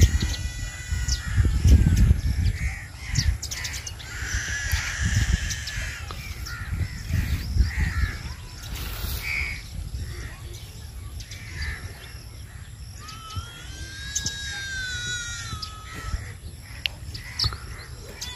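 Birds calling outdoors with harsh, drawn-out calls, one long arching call near the end. A low rumble sits underneath, loudest in the first couple of seconds.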